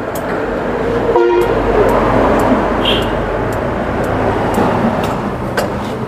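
Steady rumble of road traffic passing close by, with a short vehicle-horn toot about a second in. Light clicks of kitchen scissors snipping cooked chicken sound through it.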